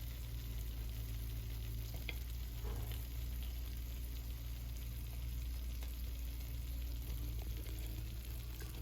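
Steady low hum under an even hiss, with a few faint light clicks.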